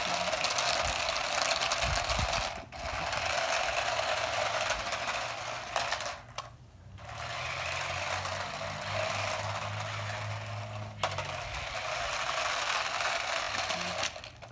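Small toy RC car's electric motor and gears whirring and rattling as it drives over rough concrete. It cuts out briefly about three seconds in and again for about a second around six to seven seconds in, then stops near the end.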